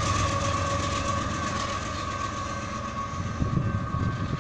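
Freight train rolling away, its low rumble slowly fading, with a steady high tone from the grade-crossing warning bell ringing over it.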